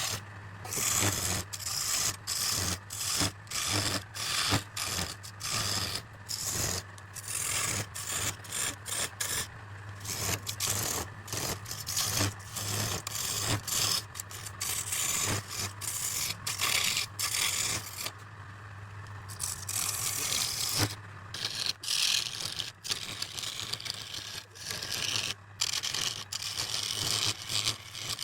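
Abrasive working of wood: scraping, rubbing strokes that come one after another with short breaks, over a steady low hum.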